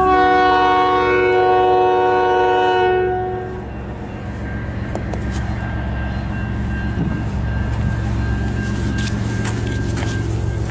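A diesel locomotive's air horn sounds one long chord of several notes for about three and a half seconds. After the horn cuts off, the locomotive's engine keeps running with a steady low rumble, and a few sharp clicks come later on.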